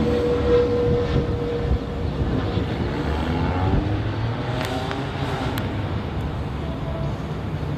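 Jet airliner engines rumbling, with a steady whine that fades out about two seconds in.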